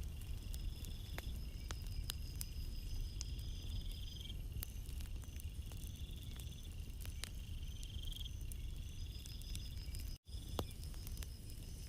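Night crickets trilling in repeated high bursts over a steady low rumble of calm sea surf, with scattered sharp clicks. The sound cuts out for a split second about ten seconds in.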